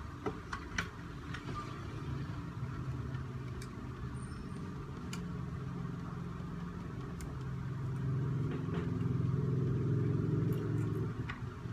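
A low, steady engine-like hum that grows louder about eight seconds in and drops back near the end, with a few light clicks of small parts and a screwdriver being handled.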